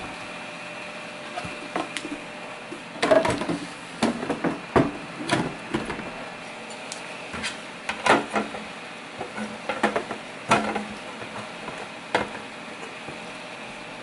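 Irregular knocks and clicks of the Tiko 3D printer's body and its base being handled and set down on a desk, loudest about three, eight and ten seconds in.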